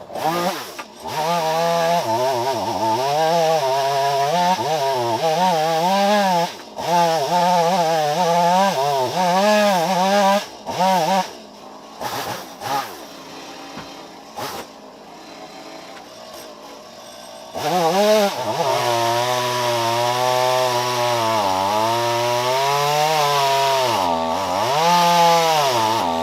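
Two-stroke chainsaw running at high revs, its pitch wavering and dipping as it bogs under load. It drops to a quieter, lower run for several seconds in the middle, then revs up again.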